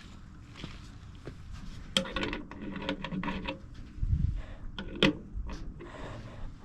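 Hand tools and metal parts being handled: scraping and rubbing, a cluster of clicks about two seconds in, and a couple of low knocks around four and five seconds.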